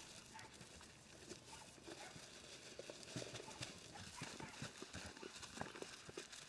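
Sheep eating grain from a plastic tub: faint, irregular crunching and knocks as their muzzles push through the feed and bump the tub, coming more often after about three seconds.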